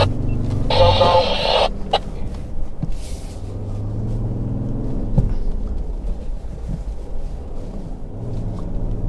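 Ford Endeavour's 3.2-litre five-cylinder diesel engine heard from inside the cabin, pulling the automatic SUV through soft sand, its pitch rising and falling with the throttle. A single knock sounds about halfway through.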